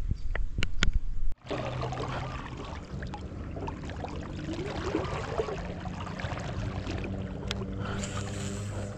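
Water trickling and lapping around a small boat on a canal, with a steady low hum underneath. A few sharp clicks come in the first second and a half, before the sound changes abruptly.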